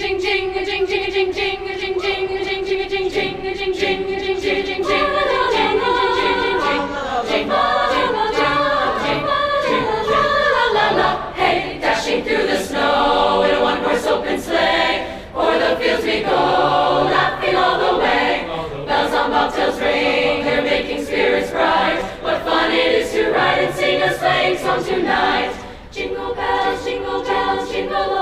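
Large school choir singing in parts. It opens on one long held note for about the first five seconds, then the voices move apart into changing harmonies.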